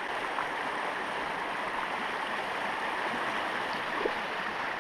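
Small creek rushing over rocks: a steady, even water noise.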